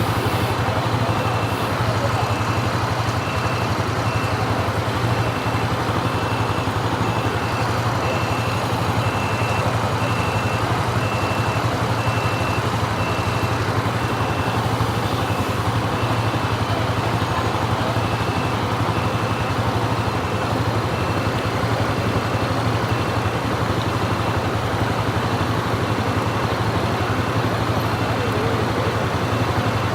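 Motorcycle engine running steadily with road and wind noise. A faint high beep repeats at a steady pace.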